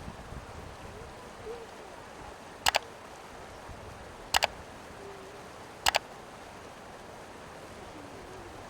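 Steady rush of a mountain river. Three sharp double knocks cut through it, about one and a half seconds apart, each a quick pair of hard strikes.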